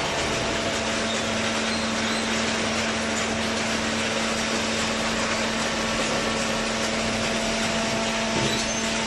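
Hydraulic baling press running: a steady mechanical noise over a constant low hum, with a brief clunk near the end.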